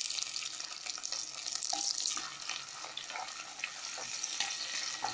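Chopped tomatoes and shallots sizzling in hot sesame oil in a clay pot as they are stirred with a spoon: a steady hiss with small scrapes and clicks.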